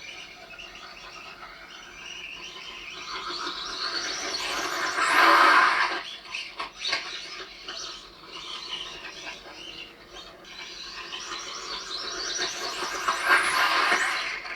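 Radio-controlled off-road car motors whining as the cars drive by, swelling loud about five seconds in and again near the end. The sound is heard thin and smeared because it was re-recorded on a phone from a TV.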